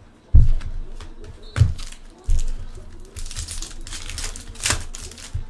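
Trading-card packaging being handled: three dull knocks on the table in the first two and a half seconds, then crinkling of wrapper or sleeve material for about two seconds near the end.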